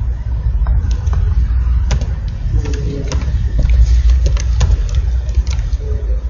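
Computer keyboard keys clicking irregularly as code is typed, over a loud, steady low rumble.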